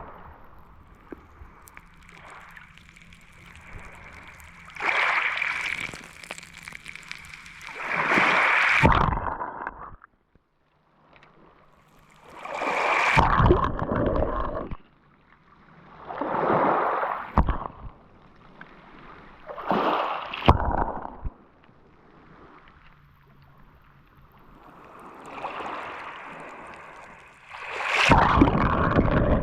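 Small Mediterranean Sea waves breaking and washing up the shore, surging and falling back every three to four seconds. A faint steady hum runs under the first few waves.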